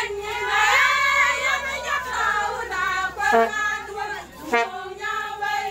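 Women's voices singing together in a group song, the melody rising and falling with held notes.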